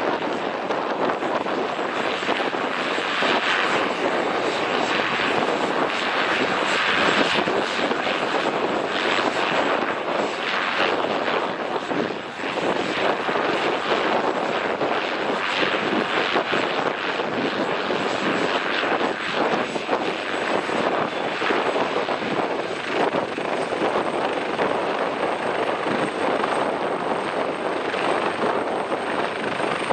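Helicopter running on the ground, rotor turning and turbines at speed: a steady, loud rush of rotor and engine noise. Over it runs a thin high turbine whine that edges up in pitch near the end as power comes up toward takeoff.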